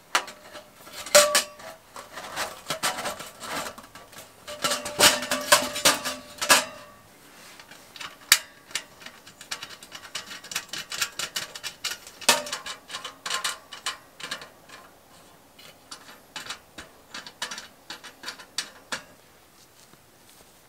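Stainless steel stovepipe clinking and knocking as it is fitted into a metal roof collar. The louder knocks carry a brief metallic ring, and after about seven seconds they thin out to small, sparse metal clicks.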